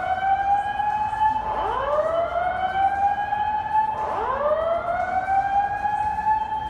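Building fire alarm sounding its evacuation tone: a loud whoop that rises in pitch over about two and a half seconds and then starts over, repeating three times.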